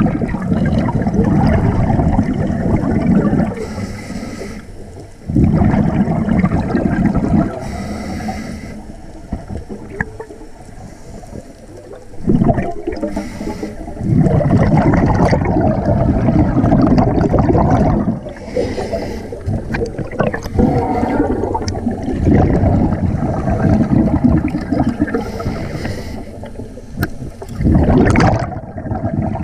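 Scuba diver breathing through a regulator underwater: several loud bursts of exhaled bubbles, each a few seconds long, alternating with quieter inhales that carry a thin hiss.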